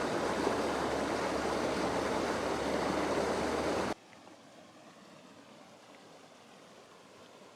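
Small waterfall pouring into a deep river pool, a steady rush of water that drops abruptly to a faint hiss about four seconds in.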